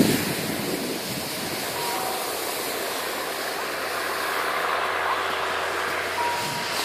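Steady rushing noise of wind on the microphone while moving down a snowy ski slope, mixed with the hiss of sliding over snow, with a brief thump at the very start.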